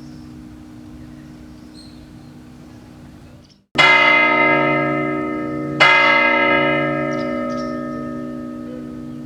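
Clock tower bell striking the hour twice, the two strokes about two seconds apart, each ringing out with a long fading hum: the clock sounding two o'clock. Before the strokes, the hum of an earlier stroke fades and cuts off.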